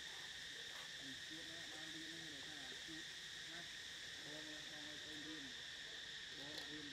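Faint, steady insect chorus: a high-pitched drone that holds on one pitch without a break.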